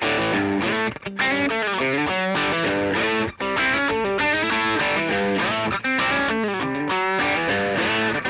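Electric guitar playing the unaccompanied intro to a rock song, a run of stepping notes, with two brief breaks about one and three seconds in.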